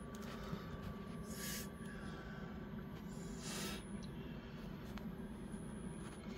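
A steady low hum with two short, breathy hisses, about a second and a half and three and a half seconds in, like a person breathing out close to the microphone.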